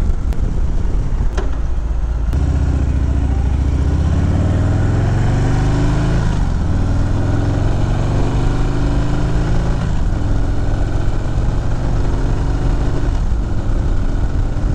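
Harley-Davidson V-twin motorcycle engine pulling up through the gears at moderate revs, kept below about 3,000 RPM as for break-in, heard from the rider's seat with wind rush. The pitch climbs, drops back at a shift about six seconds in and again around ten seconds, then holds steady at cruise.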